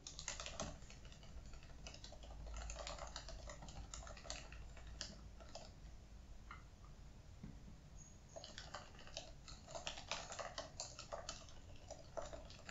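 Fingers typing on a laptop keyboard: faint, quick key clicks in two runs, with a pause of a couple of seconds around the middle.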